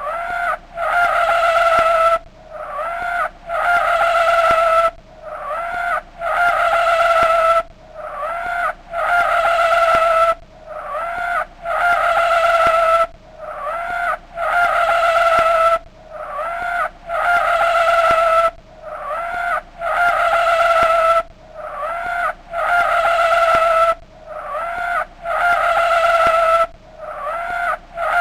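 Chevrolet S-10 mud truck's engine revved hard over and over while stuck deep. Each rev climbs quickly to a high, steady whine, holds for a second or two, then drops away, about every two and a half to three seconds.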